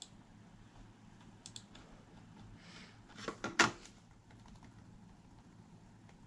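Laptop keyboard keys tapped a few times with sharp clicks, then a short rustle and a cluster of louder knocks about three and a half seconds in.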